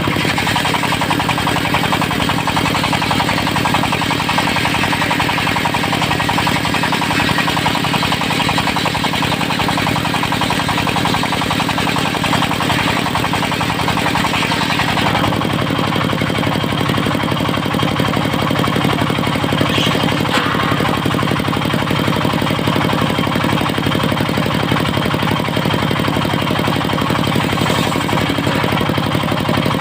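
Diesel-powered circular sawmill running steadily under load while sawing teak. About halfway through, the engine's pitch shifts and the higher saw noise thins.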